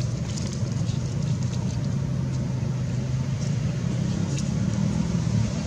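Steady low engine rumble with a faint steady hum, like a motor vehicle running nearby.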